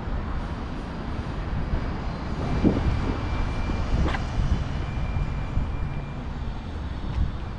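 City street noise: a steady low rumble, with brief knocks about two and a half and four seconds in.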